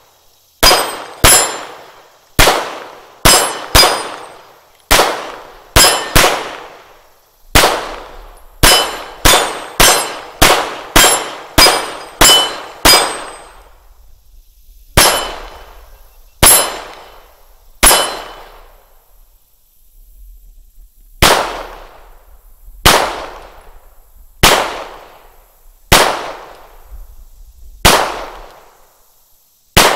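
A custom Glock 17 Gen 3 9mm pistol firing about two dozen shots at a steel target, with the plate clanging. The shots come in quick strings over the first dozen seconds, then slow to single, evenly spaced shots about every one and a half seconds.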